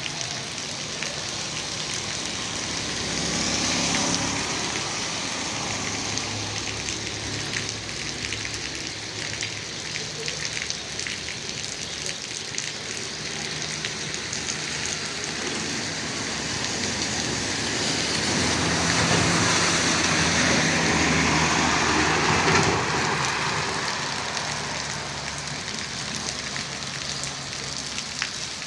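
Steady rain falling and pattering on surfaces, a dense hiss full of fine drop ticks. It swells briefly a few seconds in, and again for several seconds about two-thirds of the way through.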